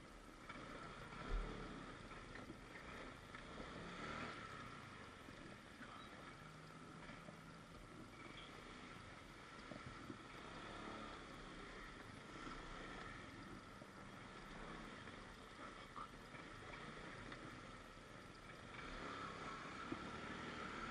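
Faint, steady wind and street noise heard while riding, with a soft thump about a second in.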